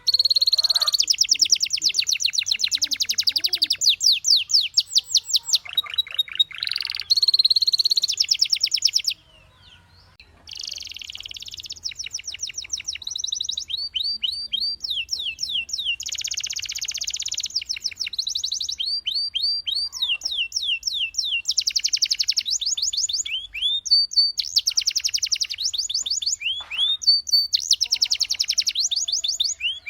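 Domestic canary singing: fast trills of repeated high down-slurred notes, run into one another, with a brief pause about nine seconds in.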